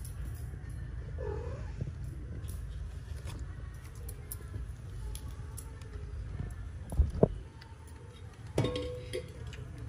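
Newborn kittens mewing faintly and a mother cat moving about in a cardboard box, with two sharp thumps about seven seconds in and a short mew with knocks shortly after.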